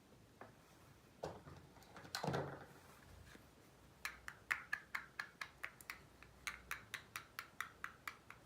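Small pieces of a miniature toy kitchen set being handled: a few soft knocks, then about four seconds in a quick, even run of light taps, about four or five a second.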